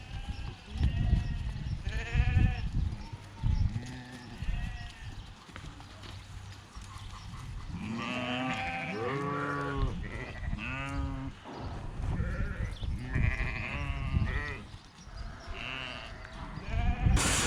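Dohne-Merino sheep bleating, several overlapping calls in a cluster midway, over low knocks and thumps. A loud rush of noise comes in near the end.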